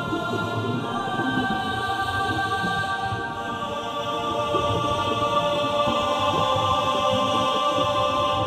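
Soundtrack music: choir voices holding long chords that shift about a second in and again around six seconds in.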